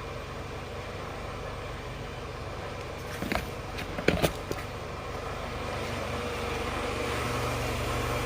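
Steady low hum of a car engine idling, getting slightly louder in the second half. A few sharp clicks and knocks come between about three and four and a half seconds in.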